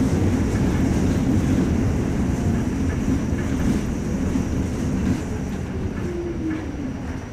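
Staten Island Railway R44 subway car heard from inside, running with a steady rumble and a few wheel clicks over rail joints. The rumble eases off as the train slows into a station, with a falling whine near the end.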